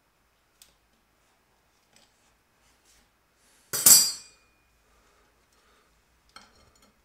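One sharp metallic clank about four seconds in, with a brief ring after it, as steel drum-brake hardware and water-pump pliers are worked to seat the handbrake cable on the brake shoe's lever. Faint metallic ticks come before it, and a few small clicks near the end.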